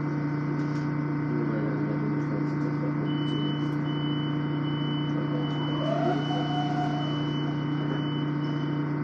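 Interior of a Long Island Rail Road M7 electric multiple-unit car under way: a steady hum from the traction equipment and running gear. About three seconds in, a thin high-pitched whine joins it and holds almost to the end.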